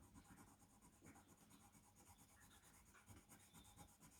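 Faint, irregular scratching of a coloured pencil shading on paper.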